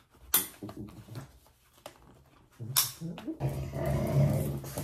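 Pug vocalizing, with a sharp knock about a third of a second in and another near three seconds, then a steady low hum from about three and a half seconds on.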